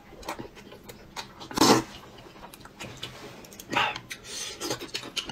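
Noodles being slurped loudly about a second and a half in and again near four seconds, with chopsticks clicking against the bowls in between.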